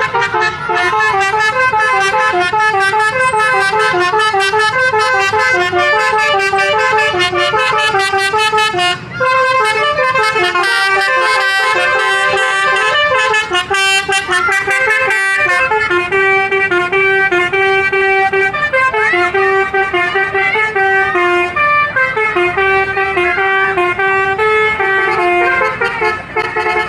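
Bus telolet horn, a Basuri multi-trumpet air horn, playing a long tune of several tones at once that step up and down. The melody breaks off briefly about a third of the way in and again just past the middle.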